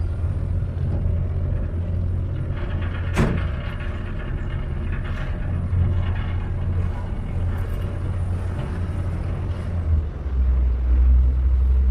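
A boat's engine running with a steady low drone, heard on board while cruising. There is a sharp knock about three seconds in, and near the end the engine note drops lower and gets louder.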